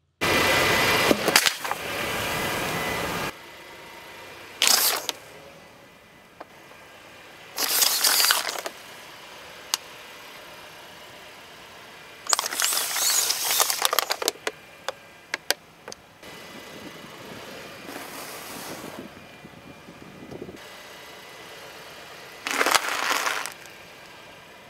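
A car tyre rolling over and crushing a series of objects on asphalt, in separate bouts. First comes water hissing and splashing through a puddle for about three seconds. Then come short crackling and crunching bouts, the longest and most crackly one in the middle as plastic drink bottles are crushed.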